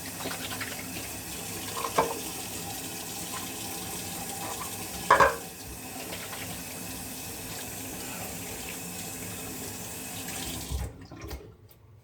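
Water running from a sink tap while a hand is rinsed under it, with two short knocks in the basin about 2 and 5 seconds in, the second louder. The tap is shut off near the end.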